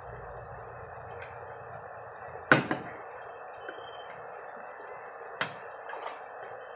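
A few sharp knocks and clinks of kitchen utensils and containers being handled on the counter, the loudest about two and a half seconds in and two lighter ones near the end, over a steady background hiss.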